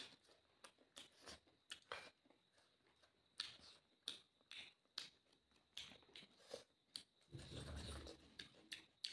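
Faint close-up eating sounds: wet chewing and lip smacks, and fingers mixing rice on a plate, heard as scattered soft clicks. A longer muffled sound comes about seven seconds in.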